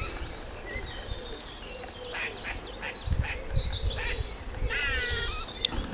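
Eastern grey squirrel making squeaky alarm calls: short high chirps scattered from about two seconds in, then a longer call that falls in pitch near the end. The squirrel is taken to be alarmed or threatened by something.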